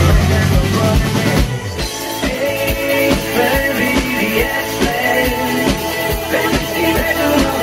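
Live rock band playing a song: drum kit with a steady kick-drum beat, bass, guitars and a singing voice. The heavy low bass drops away about a second and a half in.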